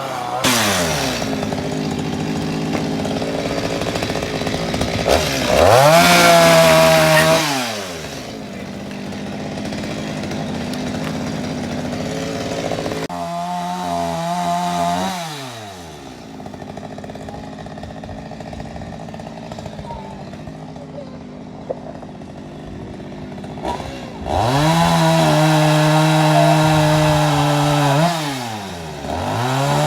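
Chainsaw cutting firewood, its small engine revved up to full throttle and dropping back to idle between cuts. There are three high-revving spells, the last and longest near the end.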